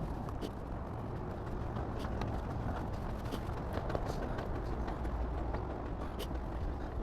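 Steady low outdoor rumble, with faint scattered clicks.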